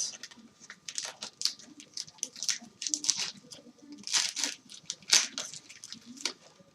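Foil wrapper of an O-Pee-Chee hockey card pack being torn open and crinkled. It makes an irregular string of sharp crackles and rips, the loudest about four and five seconds in.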